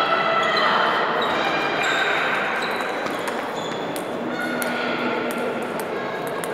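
Table tennis rally: a run of sharp, quick clicks as a celluloid/plastic ball is hit back and forth off the bats and the table, in a large, echoing sports hall.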